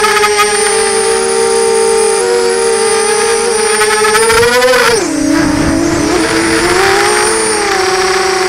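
FPV quadcopter's electric motors and propellers whining, heard close up from the onboard camera. The pitch climbs slightly for about five seconds, then drops sharply as the throttle comes off, and wavers up and down lower as the quad manoeuvres.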